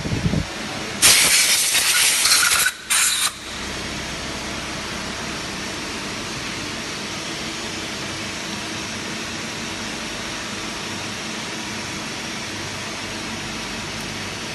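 Compressed air hissing in two blasts, a long one of nearly two seconds and a short one right after, then the steady hum of running machinery.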